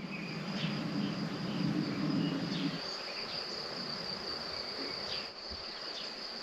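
Crickets trilling steadily at one high pitch, with a low rumble under them for the first three seconds.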